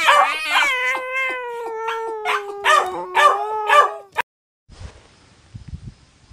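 A cat's long drawn-out yowl, slowly falling in pitch, with a small dog's short sharp barks breaking in over it in the second half. It cuts off suddenly about four seconds in, leaving only faint background noise.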